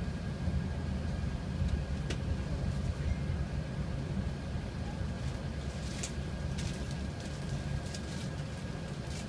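Steady low rumble of Airbus A380 cabin noise during taxi, heard inside the passenger cabin, with a few faint clicks.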